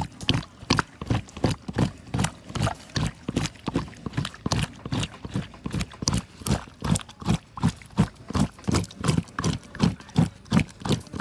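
Rhythmic scraping of a metal tool across wet boiled cow hide, about three strokes a second, as the scalded hair is scraped off the skin.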